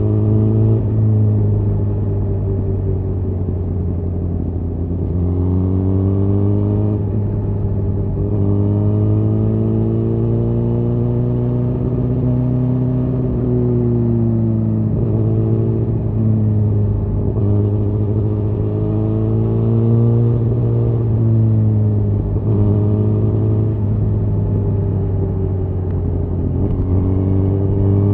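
Suzuki GSX-R1000R inline-four engine through a Yoshimura R-11 SQ exhaust, running at moderate revs under light throttle. The engine speed rises and falls slowly and smoothly several times.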